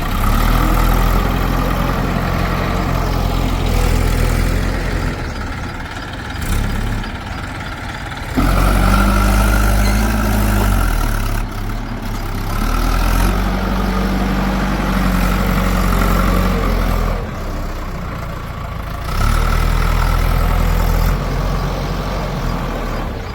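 Backhoe loader's diesel engine running and working, its note stepping up into louder spells of two to four seconds, four times, and dropping back toward idle in between.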